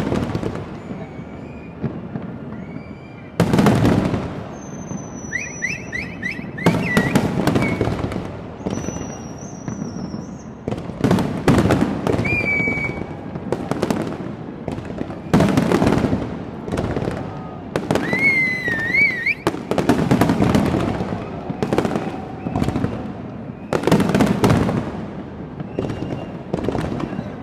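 Large aerial fireworks display bursting in quick succession: deep booms every second or two, each trailed by crackling and echo, with a few high whistles among them.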